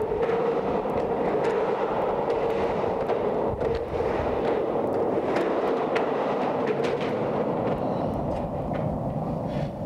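Skateboard wheels rolling on the curved wall inside a large concrete drain pipe: a steady rumble with a held hum and scattered sharp clicks.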